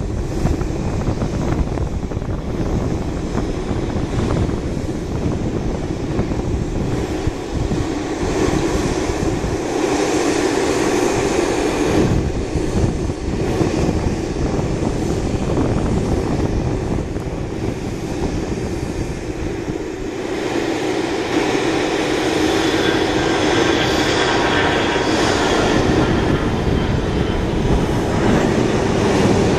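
Bombardier CRJ-700's twin rear-mounted General Electric CF34 turbofans at takeoff thrust during the takeoff roll and lift-off: a steady jet roar that grows louder in the second half.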